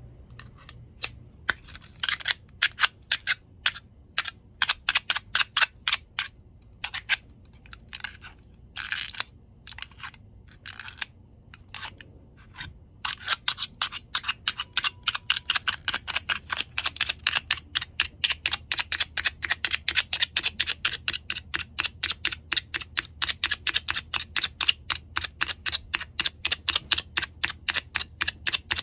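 A long series of sharp clicks: scattered and uneven for the first dozen seconds, then a fast, steady run of about four clicks a second.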